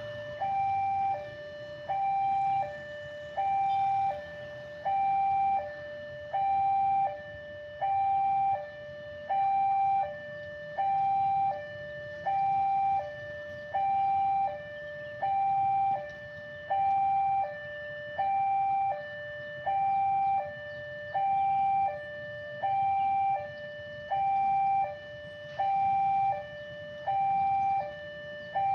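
Railway level-crossing warning alarm sounding an electronic two-tone chime, high then low, repeating about every one and a half seconds. It is the signal that a train is approaching the crossing.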